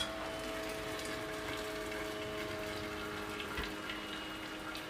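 Hot pasta water draining and dripping back into a steel pasta pot as the wire strainer basket of cooked pasta is lifted out, with a few faint ticks and a steady hum underneath.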